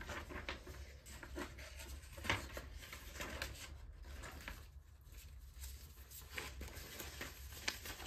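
Soft, scattered rustling and handling sounds of a paper sheet being turned over, with small crinkles and light taps, over a low steady hum.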